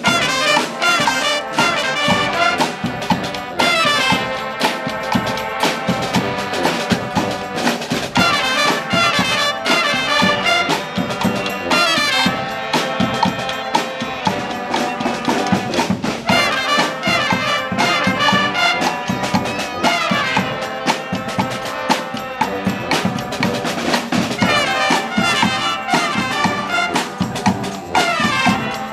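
A brass street band of trumpets and trombones over drums, playing a loud, rhythmic tune.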